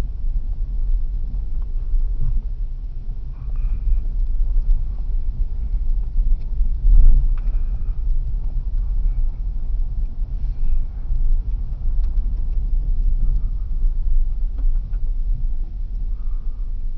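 A vehicle driving on a rough dirt road, heard from inside the cab: a steady low rumble of tires and engine, with one heavier jolt about seven seconds in.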